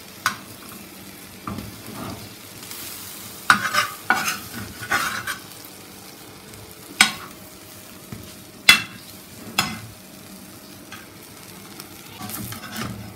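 An egg-coated sandwich frying on a flat tawa griddle with a steady low sizzle, while a metal spatula scrapes and taps against the pan about seven times.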